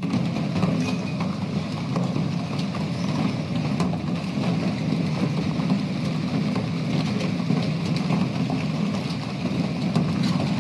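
Heavy hailstorm: a steady low roar of hail pelting the ground and a car, with a few sharp hits from single hailstones.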